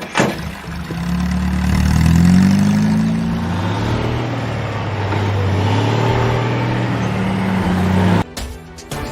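A motor vehicle engine revving, its pitch rising and falling, cutting off suddenly about a second before the end.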